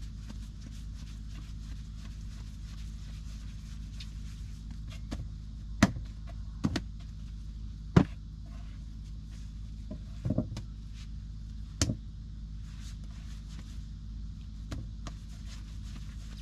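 Hand-kneaded bread dough slapped and pressed in a dish on a wooden table: about five sharp slaps and knocks a second or two apart in the middle stretch, over a steady low hum.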